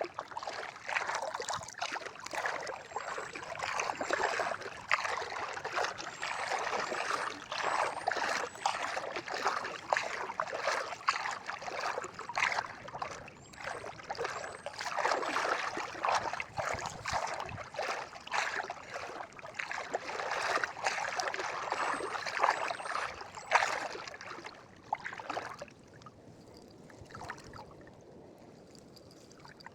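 Water splashing and sloshing in many short, irregular strokes, dying away about five seconds before the end.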